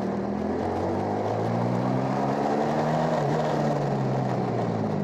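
A two-wheeler's engine running while riding, its note rising and falling a little with speed, over road and wind noise.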